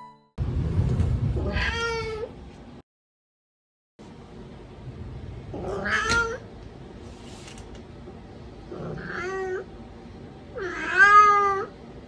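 Turkish Angora cat meowing four times, each a separate call with spaces between. The last meow is the loudest and longest.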